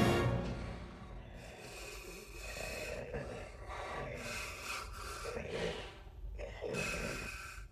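Heavy breathing through a full-face helmet's mouth grille, a run of slow breaths in and out: the wearer is short of air inside the helmet.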